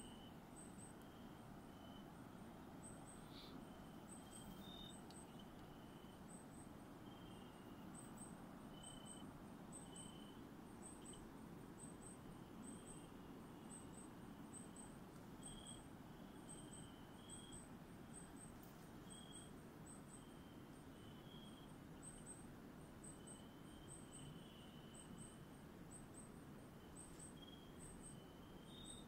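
Faint night-time chorus of calling insects: short, very high chirps, often in pairs, repeat steadily all through, with scattered lower single chirps, over a low steady hiss.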